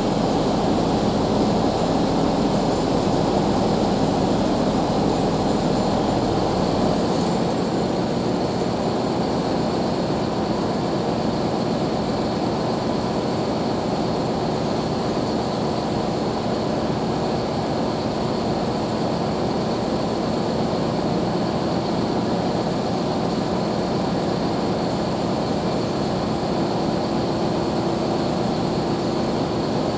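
Heavy diesel machinery running steadily, a constant engine drone with a faint high whine over it; the deepest rumble falls away about a quarter of the way in.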